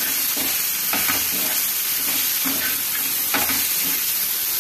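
Sliced bitter gourd frying in hot oil on a tava, sizzling steadily, while a metal spatula scrapes and turns the slices with a few short strokes.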